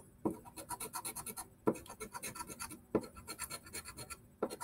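A scratch-off lottery ticket being scratched: rapid back-and-forth scraping strokes, about eight a second, in four quick runs with short breaks between them.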